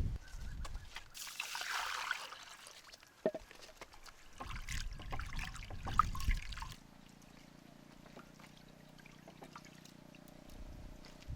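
Water trickling and splashing, with scattered knocks and clicks of handling. After about seven seconds this gives way to a faint steady hum.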